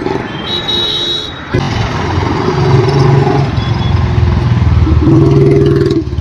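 Royal Enfield Bullet 350 single-cylinder engine running through a long Punjab silencer as the bike rides along the road. The exhaust note jumps louder about a second and a half in and rises in pitch as the bike accelerates, then holds steady.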